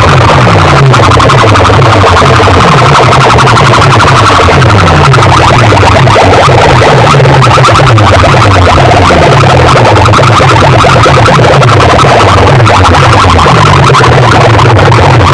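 Bass-heavy dance music blasting from a DJ sound-box system, so loud that the recording is overloaded and distorted throughout.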